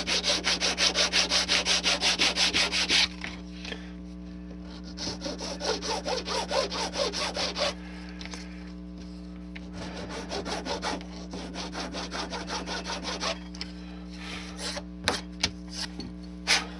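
Metal hand file rasping back and forth along the edge of a styrene plastic part, in fast, even strokes of about six a second. It comes in four bouts with short pauses between. A few light knocks near the end.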